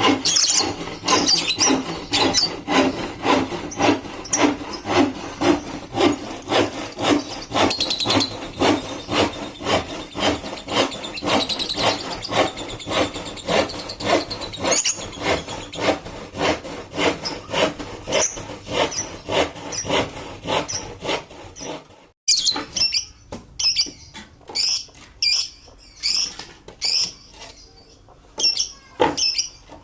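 Wood being worked by hand with a saw or rasp in even back-and-forth strokes, about two a second. After an abrupt cut about two-thirds of the way in, lovebirds chirping in short, high calls.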